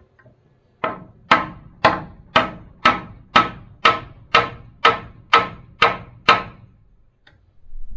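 Hammer nailing a wooden board into a barn's plank wall: about a dozen steady, evenly spaced blows, two a second, that then stop.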